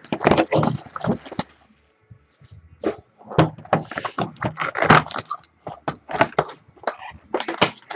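Sealed cardboard trading-card box being unwrapped and opened by hand: plastic wrap crackling and cardboard rustling in a run of sharp crackles, with a short pause about two seconds in.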